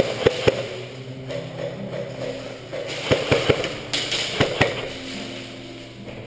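Airsoft guns firing in short rapid strings: a few shots in the first half-second, a burst of about four a little after three seconds, and another three around four and a half seconds. Background music plays under them.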